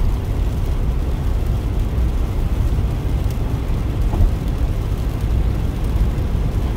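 Steady road noise heard inside the cabin of a Hyundai Veracruz SUV cruising on a wet motorway: a continuous low tyre and engine rumble.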